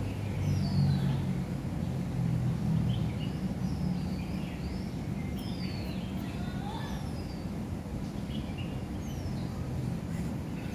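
Steady low hum of road traffic, with many short high bird chirps that slide downward in pitch.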